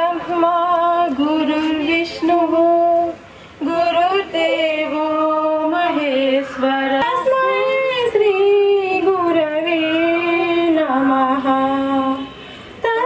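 Women singing a devotional prayer song through a microphone, a slow melody of long held notes with two short pauses for breath.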